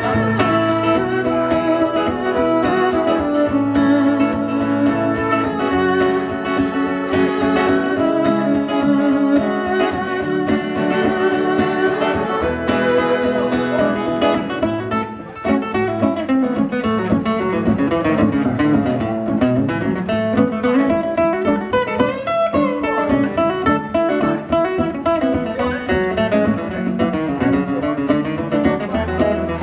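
Instrumental break of an acoustic folk song: two acoustic guitars strumming and picking under a fiddle playing the lead line. The level dips briefly about fifteen seconds in.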